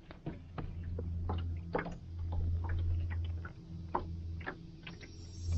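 Small clicks and ticks of fishing tackle being handled: rod, reel and a small jig worked in the fingers. Underneath, a low steady hum that swells and fades a couple of times.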